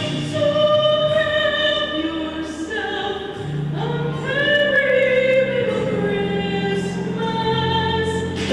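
A choir singing sustained, held notes in several parts, with pitches gliding between notes over a steady low accompaniment.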